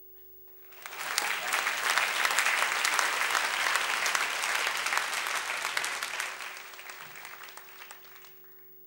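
Audience applauding: the clapping swells in under a second, holds full for about five seconds, then thins and dies away near the end.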